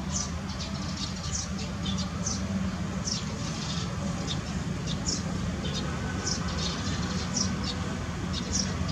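Monkey giving short, high-pitched squeaks, one every half-second to second in an irregular series, over a steady low hum.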